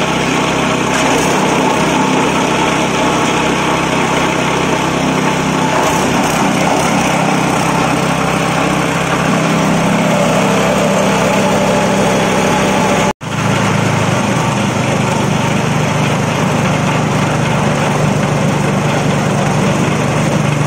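Straw and coconut-husk chopping machine running steadily on a small engine. There is a sudden break about two-thirds of the way through, after which it carries on.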